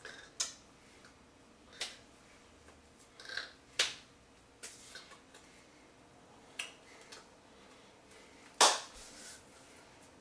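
A person making several sharp, short clicks at irregular intervals, the loudest about three-quarters of the way through, with faint breathy hisses between them.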